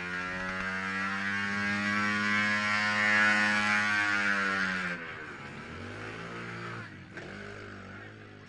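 Pit bike engines revving hard under acceleration: the pitch climbs over the first couple of seconds and is held high, then drops away sharply about five seconds in. A lower, quieter engine note rises and falls again near the end.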